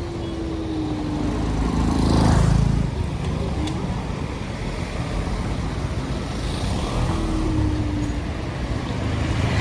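Rush-hour road traffic: a steady rumble of car engines and tyres, with one vehicle passing louder about two seconds in and another swelling near the end, and a faint falling whine.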